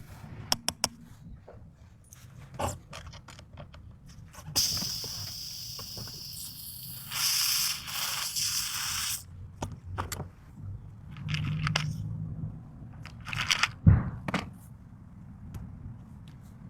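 Hand tools of a tire repair kit being handled: a series of sharp clicks and knocks, with a few seconds of steady scraping or hissing noise from about four and a half seconds in, and a loud knock near the end.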